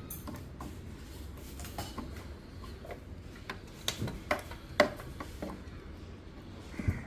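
Scattered light clicks and knocks of hard objects being handled, over a low steady hum; the sharpest taps come about four to five seconds in.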